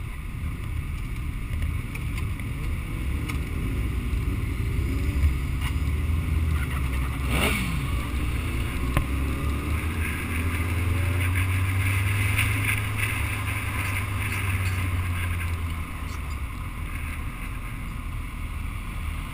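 Suzuki Hayabusa motorcycle engine pulling away from a stop and accelerating, its pitch rising over several seconds, then running steady and loud before easing off near the end.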